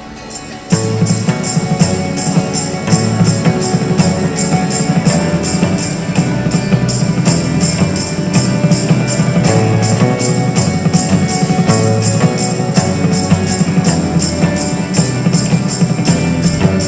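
A band playing music: a quiet start, then the full band comes in under a second in with a steady beat, bass and regularly repeating jingling percussion.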